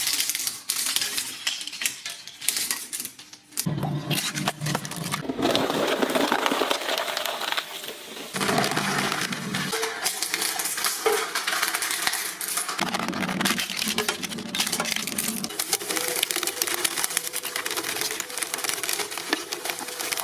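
Industrial shredder blades crunching hard objects, a dense crackle of cracking and snapping pieces that changes abruptly every few seconds as one shredding clip cuts to the next.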